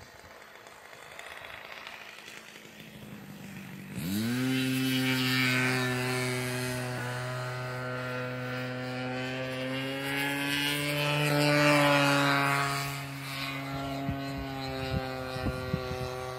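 The 33cc engine and propeller of an Ultra Stik RC airplane in flight. A buzzing engine note comes in abruptly about four seconds in, sweeping up quickly in pitch, then holds steady, rising slightly in pitch and loudness a little past two-thirds of the way through.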